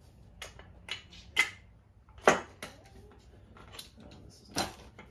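Scattered metallic clicks and clinks of a new brake caliper and its brake pads being handled and fitted together, about seven in all at uneven intervals, the loudest a little past two seconds in.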